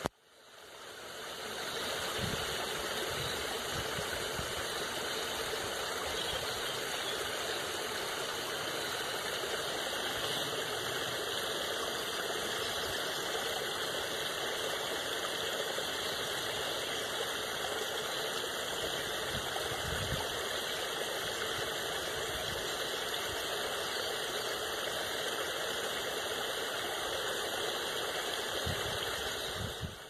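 Water spilling steadily over a low weir into a stream, a continuous even rush that fades in over the first couple of seconds. A few faint low thumps sound through it, about two seconds in, near the middle and near the end.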